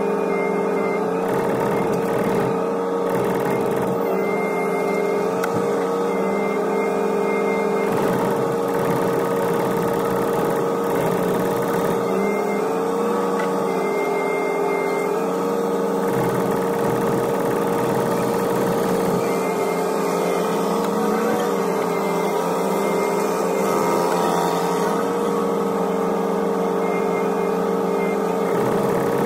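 Hitachi ZX125W wheeled excavator's diesel engine running steadily, heard from inside the cab, with a steady whine whose pitch lifts slightly a few times as the boom and bucket are worked.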